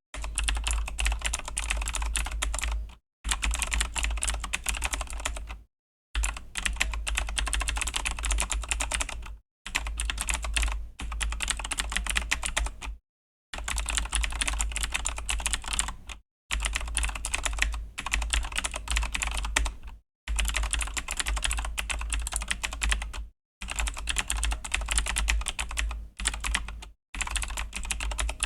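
Fast typing on a Razer BlackWidow V3 mechanical keyboard with Razer Green clicky switches, a dense clatter of key clicks. It comes in runs of a few seconds broken by brief pauses.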